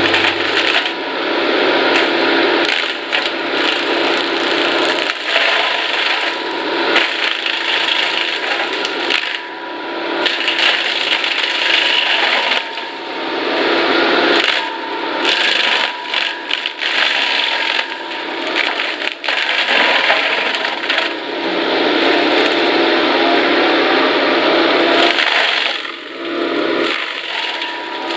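Brush Hound excavator-mounted forestry mulcher's spinning drum shredding brush and wood, with constant cracking and splintering over a steady high whine. The sound surges and eases as the head bites in and lifts off.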